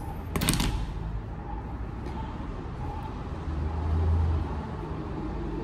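A brief rustle near the start, as hands and a comb work through hair, over a steady low rumble that swells louder for about a second around four seconds in.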